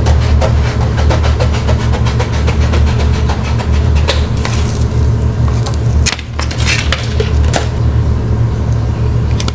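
Sheet of gloss vinyl wrap being cut from its roll and handled: many small clicks and rustles over a steady low hum.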